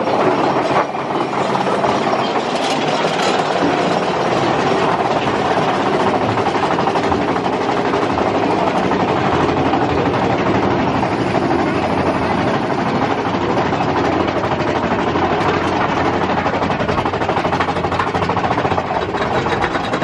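Mine-train roller coaster cars running along the track: a steady loud rumble and rattle of wheels on rails, heard from a seat on the train.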